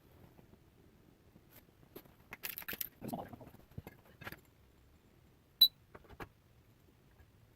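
Scattered small clicks and light knocks, with a short cluster of them about two and a half seconds in and one sharp click with a brief ring about five and a half seconds in.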